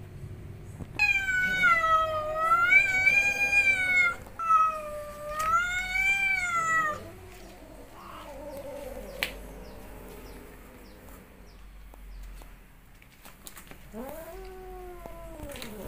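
A domestic cat caterwauling in anger: two long, loud, wavering yowls in the first seven seconds, a fainter call after them, and a shorter yowl that rises and falls near the end.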